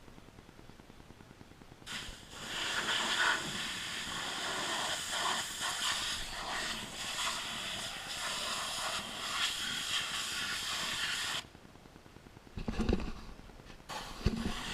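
Pressure washer jet spraying with a steady hiss for about nine seconds, cutting off sharply when the trigger is released, then two short spray bursts near the end.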